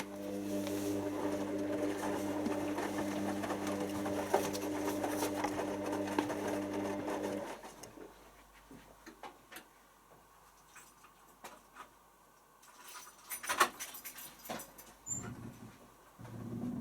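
Hoover washing machine topping up with water for the pre-wash: the water inlet valve hums steadily with water rushing in, then cuts off suddenly about seven and a half seconds in. A few clicks follow, and a low hum starts again near the end.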